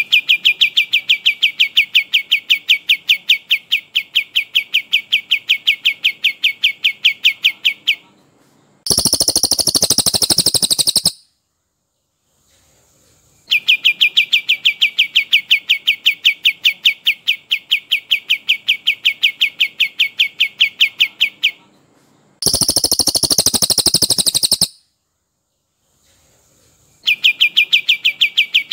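Recorded songs of a brown cililin and a kapas tembak, looped for training cage birds. A long rolling run of rapid repeated notes, several a second, lasts about eight seconds. It is followed by a short, higher, denser burst of about two seconds, and the cycle repeats twice.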